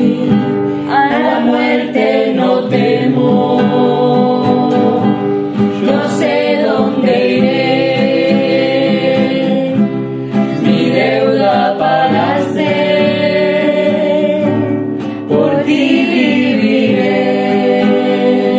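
Men's and women's voices singing a Spanish hymn together, holding long notes, accompanied by a nylon-string acoustic guitar.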